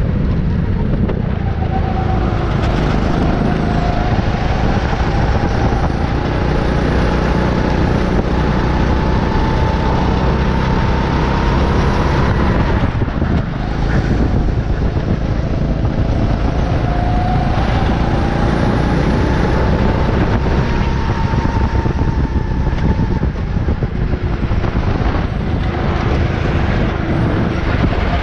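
Go-kart engine running hard on track, heard from the kart itself: its pitch climbs slowly for several seconds on the straights and drops when the throttle is lifted for the corners, with a short dip about halfway through. Heavy rushing noise runs underneath.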